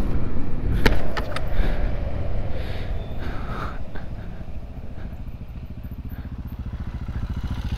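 Low rumble with a few sharp clicks, then the even pulsing of a Royal Enfield Himalayan's air-cooled single-cylinder engine running at low revs, growing louder over the last few seconds.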